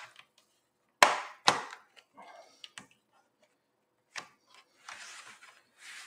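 Plastic clips of a Lenovo IdeaPad 3 laptop's bottom cover snapping loose as it is pried up with a guitar pick: two sharp pops about half a second apart, about a second in, then lighter clicks, and a short rustling scrape near the end as the laptop is handled.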